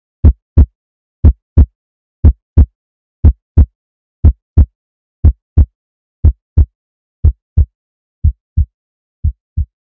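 Heartbeat sound effect: paired lub-dub thumps, about one beat a second at an even pace, growing fainter and duller over the last two seconds.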